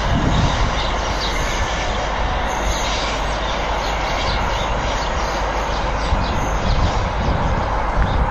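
London Midland Class 350 Desiro electric multiple unit running away along the track, a steady rumble and hiss of wheels and traction.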